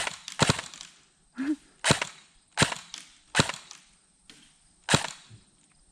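Airsoft guns firing single shots, about six sharp cracks at uneven intervals of roughly half a second to a second and a half.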